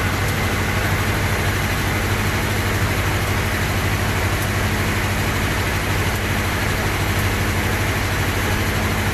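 Powercity marine diesel generator set running steadily at 1,500 RPM, a loud even drone with a strong low hum. It is carrying the vessel's electrical load, which has just been switched onto it.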